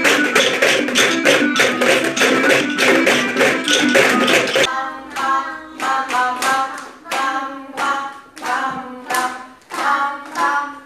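Recorded children's music with a steady beat, wooden rhythm sticks tapping along about four times a second. About four and a half seconds in it cuts to voices chanting short rhythmic phrases between hand claps.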